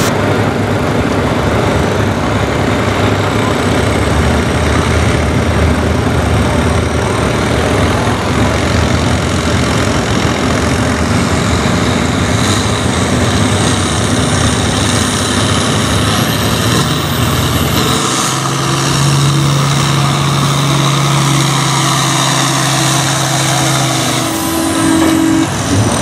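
International farm pulling tractor's engine running hard under load as it pulls a weight-transfer sled down the track. About two-thirds of the way through, the low rumble thins and a steady pitched drone holds for several seconds before ending near the close.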